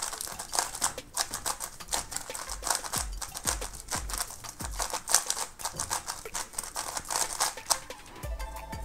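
Dayan TengYun V2 magnetic 3x3 speedcube being turned quickly by hand, its plastic layers giving rapid, irregular clicks; the cube is set up and lubricated. Background music comes in near the end.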